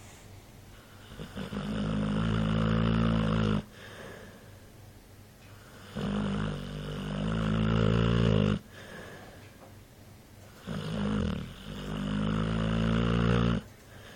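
A dog snoring in its sleep: three long, loud snores about four to five seconds apart, with quieter breathing between them.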